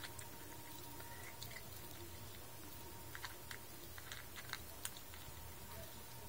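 A cat crunching dry kibble: faint, irregular clicks of chewing, thickest a few seconds in, over a steady low hum.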